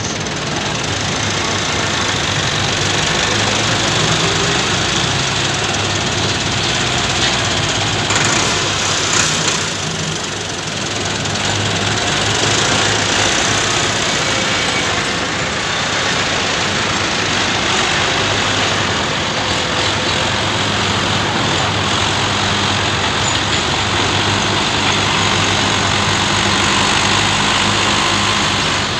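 Fiat 640 tractor's four-cylinder diesel engine running steadily under load as it pulls a heavily loaded sugarcane trolley.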